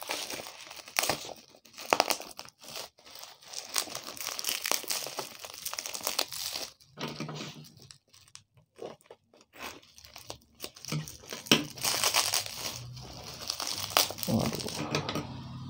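Black plastic parcel wrapping and clear packing tape being crinkled and peeled off by hand: irregular rustling and short tearing sounds with brief pauses.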